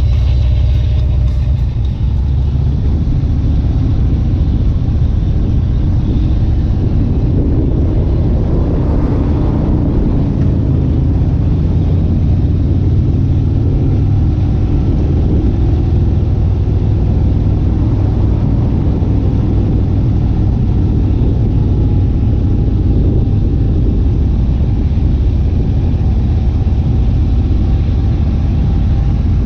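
A loud motor vehicle running, its low rumble steady throughout, with faint music underneath.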